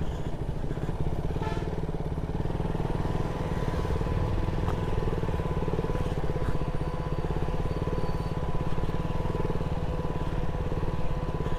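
Motorcycle engine running steadily at low speed on a muddy dirt road, heard from the rider's seat as an even low rumble with a faint steady whine above it.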